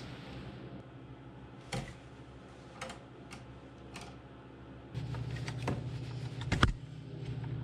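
Scattered sharp clicks and snips of hand wire strippers cutting and stripping Romex cable wires. About five seconds in, a steady low hum comes in beneath them.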